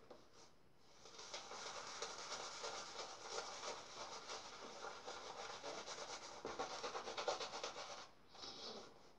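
A shaving brush working soap lather, its wet bristles scrubbing continuously for about seven seconds and stopping about a second before the end, followed by one short swish.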